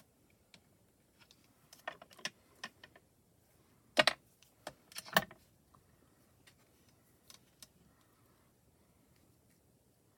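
Craft tools clicking and clacking on a glass craft mat as metal tweezers and a clear acrylic block are handled and set down. There are a few light taps about two seconds in and two sharper clacks about four and five seconds in.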